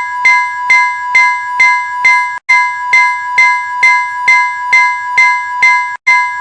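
Swedish railway level crossing warning bell ringing in a steady run of strikes, about two a second, each strike ringing on until the next. It breaks off briefly about two and a half seconds in and again near the end.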